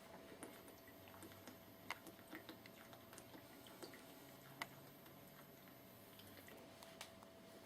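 Near silence with faint gulping and swallowing as someone drinks Diet Coke from a 2-litre bottle: soft scattered clicks, two sharper ones about two seconds and four and a half seconds in.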